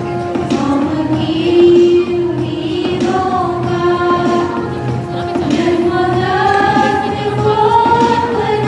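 A small group of young singers singing together as a choir, holding long notes; the melody climbs in pitch about two thirds of the way through.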